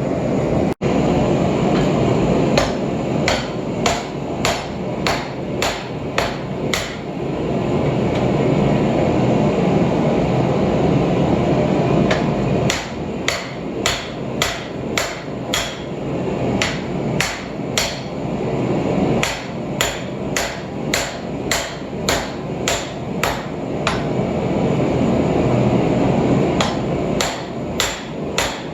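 Hand hammer striking a hot Damascus billet on the end of a steel sucker rod used as an anvil, drawing the steel down in runs of about two blows a second with a pause of a few seconds near the middle. A steady low rushing noise runs underneath and swells during the pause.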